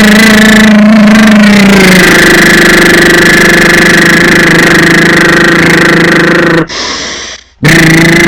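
A person doing a lip trill: loose lips fluttering like a horse's while voicing a held note, giving a loud, rough buzz. The pitch drops slightly about two seconds in, and the buzz breaks off for about a second near the end before starting again. It is done as a facial relaxation exercise, vibrating the lips to loosen tension in the face.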